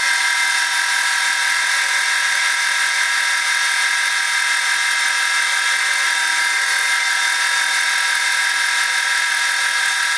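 Sieg SX2P mini mill spindle running at a steady speed, drilling a small hole into a brass block with a fine drill bit; a constant high whine.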